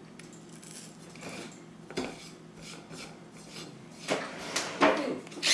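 Light clicks, taps and scrapes of a battery-powered pepper grinder being handled and its grind-adjustment knob turned, with a few louder knocks about four and five seconds in.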